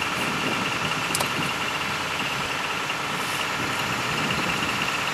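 An engine running steadily at idle, with a steady high whine over it and a brief click about a second in.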